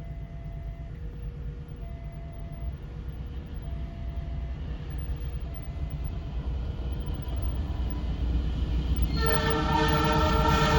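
Diesel-electric locomotive approaching with a low rumble that grows steadily louder, under a faint two-note signal alternating about once a second. About nine seconds in, the CC 206 locomotive's horn starts a long, loud blast: the Semboyan 35 warning signal.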